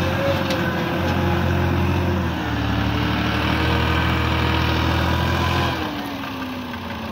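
Massey Ferguson 260 tractor's diesel engine running steadily under load as it pushes straw with its rear blade. About six seconds in it eases off, the level drops and its pitch falls.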